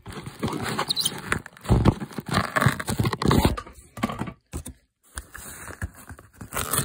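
Hands handling a corrugated cardboard shipping box: irregular scraping, rustling and tapping on the cardboard, with a brief pause just past the middle.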